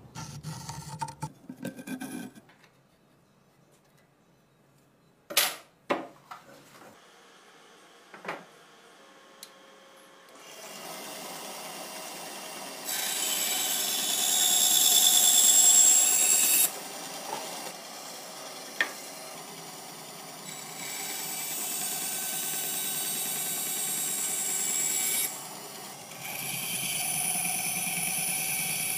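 Pencil scratching a line onto a wooden board, then a few sharp clicks. About ten seconds in, a band saw starts running, and it gets louder and hissier in three spells as the blade cuts through the wood.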